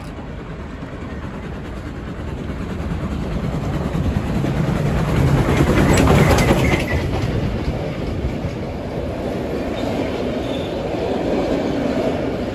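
Heritage steam train passing close by: the locomotive grows louder as it approaches and is loudest about halfway through as it goes past, then wooden carriages roll by with a steady rumble of wheels on the rails.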